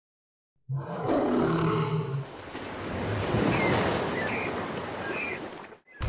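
Lion roar lasting about a second and a half, then a steady rush of water like surf with a few short high bird chirps over it, cutting off suddenly just before the end.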